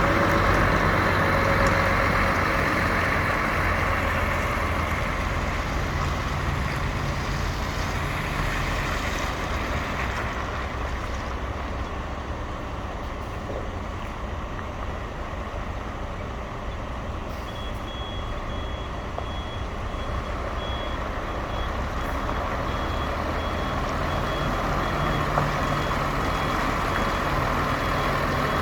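Concrete pump truck's diesel engine running steadily. About two thirds of the way through, a high electronic warning beeper starts sounding in quick repeated pulses.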